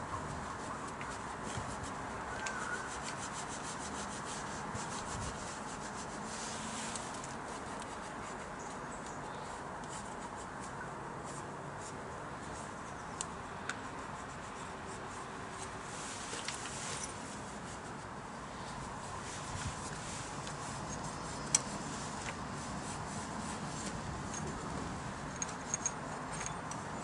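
Cloth rag rubbing and wiping over the metal gasket face of a Yamaha RS125's crankcase, cleaning it before a new casing gasket goes on: a steady scratchy rubbing with a few small clicks and one sharp click about two-thirds of the way through.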